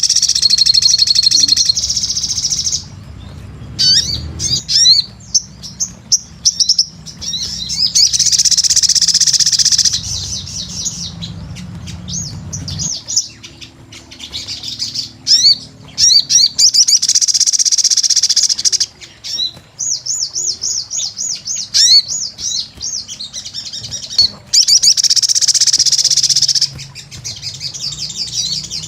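A sogon, a sunbird, singing vigorously: high, fast chirps and trills, in several dense loud runs of song with rapid repeated chirp series between them.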